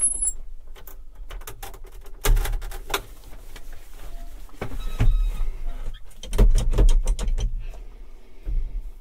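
Handling noises on a John Deere 6200 tractor standing with its engine off: a series of clicks and knocks, with heavier thumps about two seconds in, about five seconds in, and in a cluster a little past six seconds.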